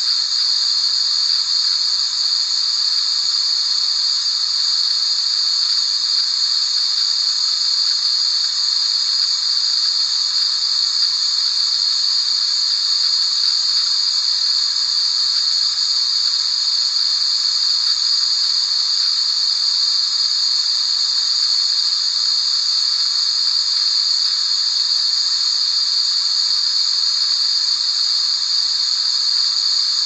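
Steady white-noise hiss, unchanging throughout, high-pitched and bright with little low end.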